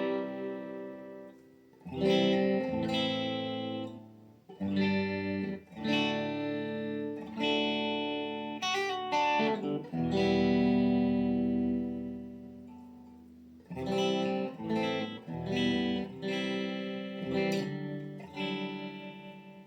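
Electric guitar on its Lollar High Wind Imperial bridge humbucker, played through a Blackstar ID Core 40 amp's crunch channel with light reverb and picked up by a phone's microphone. Chords are struck and left to ring and fade, with a quick flurry of notes just before halfway and a long held chord after it.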